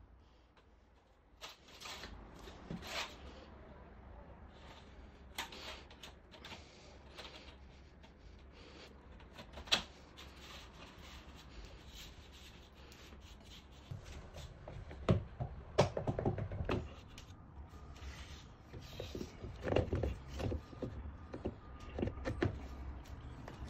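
Handling noises from fitting a roller-blind motor: scattered clicks, knocks and rubbing as the tubular motor and its octagonal steel roller tube are pushed together and set into a bracket. One sharp click comes about ten seconds in, and a cluster of louder knocks comes about fifteen seconds in.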